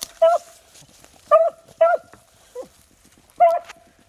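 Beagles giving tongue on a rabbit's scent trail: short, separate barks, four loud ones and a fainter one, spaced irregularly about half a second to a second and a half apart.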